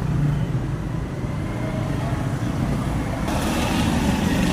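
Steady low rumble of road traffic, with a hiss that rises about three seconds in.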